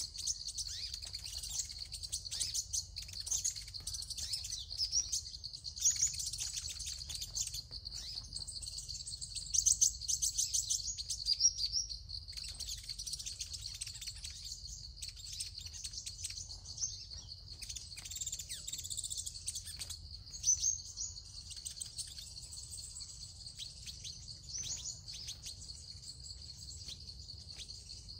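Sunbirds chirping: rapid, high twittering calls and short trills, loudest around ten seconds in, over a steady high hum.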